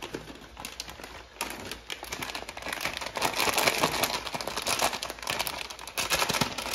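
Plastic bag of shredded cheddar cheese crinkling as it is handled, starting about a second and a half in and loudest in the middle.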